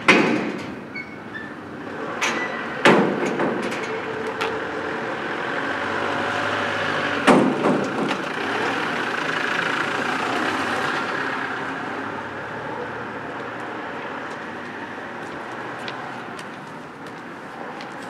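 Heavy metal double gate clanking and banging as it is opened, with several loud knocks over the first seven seconds. Then a van drives through, its engine and tyre noise swelling in the middle and slowly fading.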